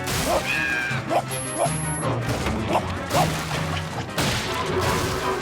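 Cartoon slapstick crashing and smashing sound effects over background music, with a harsh crash right at the start and another about four seconds in.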